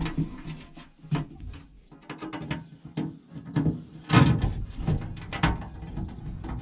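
Irregular clattering and knocking of tools and small metal parts being handled and rummaged through, as when searching for a small bolt, with the loudest clatter about four seconds in.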